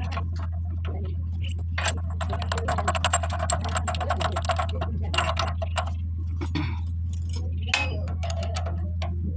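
Metal tool clinking and rattling as a spark plug is refitted into a small generator, with a rapid run of clicks about two seconds in. A steady low hum runs underneath.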